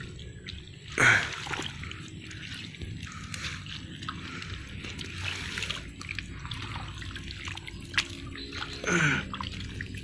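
Hands squelching and splashing through wet mud and muddy puddle water, with scattered drips and trickles. There are two louder sounds with a falling pitch, about a second in and near the end.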